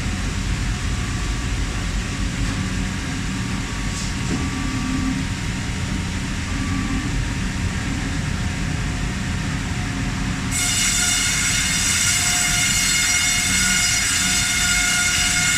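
Sawmill vertical band saw running with a steady low rumble; about ten seconds in, a louder high-pitched whine of several steady tones sets in suddenly and holds.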